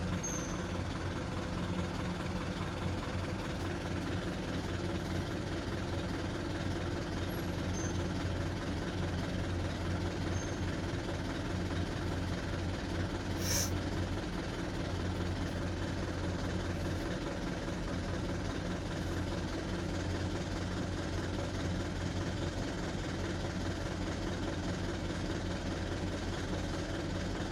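Truck engine running steadily under load as the truck climbs a steep slope, with a brief high hiss about halfway through.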